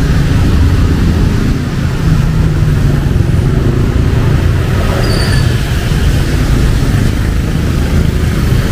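Steady low rumble of road traffic on a wet street, over an even hiss of rain, with a brief faint high squeak about five seconds in.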